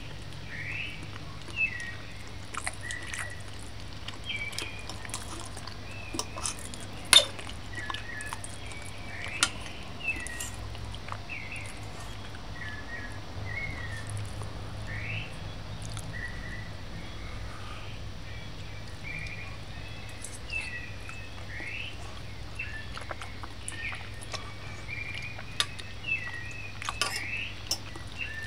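A metal fork and spoon clinking now and then against a china plate, loudest about seven seconds in and several times near the end. Behind it, a steady run of short, high chirping calls and a low hum.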